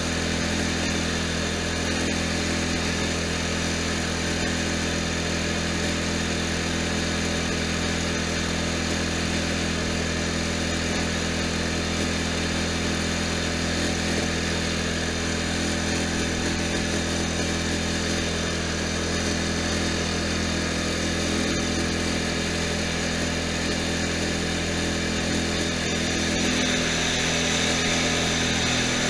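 Riding lawn tractor's engine running steadily at cruising speed, a constant drone. Near the end it gets slightly louder and brighter as the tractor passes under a bridge and the sound reflects off its walls.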